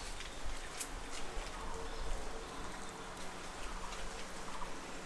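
Scattered sharp clicks over a quiet background, the loudest about a second in. Near the end comes a short, rapidly pulsing animal call.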